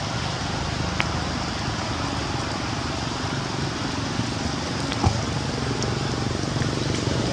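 Steady outdoor background noise: an even hiss over a low rumble, with a couple of faint clicks about a second in and near five seconds.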